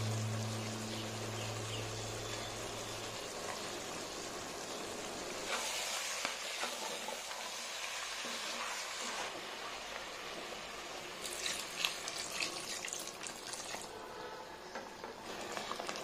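Curry simmering and sizzling in a cast-iron pot, a steady hiss, with a spatula stirring and scraping through the pumpkin cubes at intervals, mostly in the second half.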